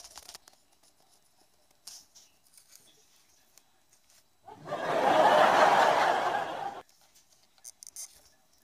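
Studio audience laughter from a laugh track, swelling in about halfway through and cutting off sharply about two seconds later. Faint scratches and rustles against cardboard come before and after it.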